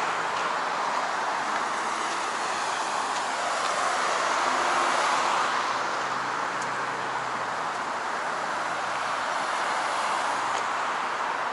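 Street traffic noise: a steady rush of passing vehicles and tyres, swelling slightly about halfway through as a vehicle goes by.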